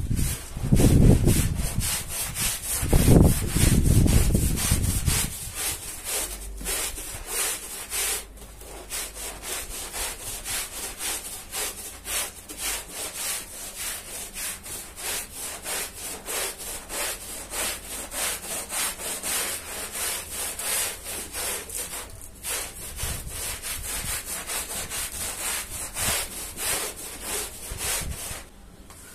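Long-handled scrubbing brush worked back and forth over a wet, soapy rug, a rhythmic bristle rasp at about three or four strokes a second. It is louder for about the first five seconds, then carries on softer and even.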